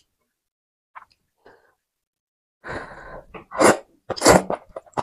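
A mouthful of noodles slurped in noisily, starting a little past halfway: a hissing draw, then two sharp slurps.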